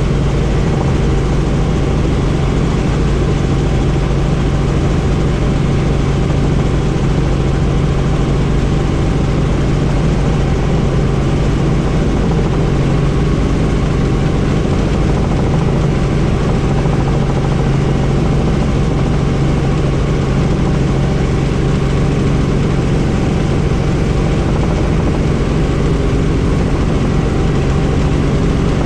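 Helicopter in flight: steady turbine and rotor drone with a low hum, heard from inside the cabin with the doors off, so wind noise is mixed in.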